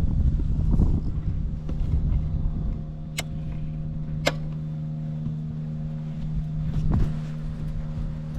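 BMW R1200R boxer-twin engine idling steadily with no unusual noises, settled after revving. Two short sharp clicks sound about three and four seconds in.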